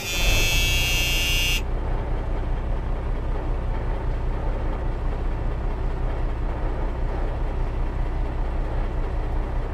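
A large vehicle engine running steadily with a heavy, pulsing low rumble. A high-pitched tone rides over it for the first second and a half, then cuts off abruptly.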